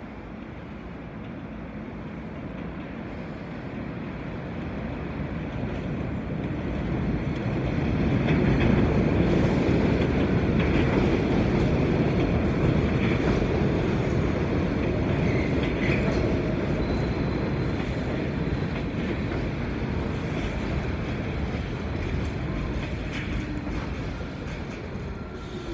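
R46 New York City subway train arriving on the elevated line: a rumble that builds as it approaches, is loudest as the cars run past along the platform, then eases off as the train slows for the stop, with a few short wheel squeals in the middle.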